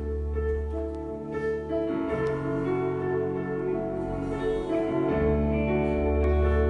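Instrumental worship-band music without singing: held chords over a low bass line, the bass changing notes about two seconds in and again about five seconds in.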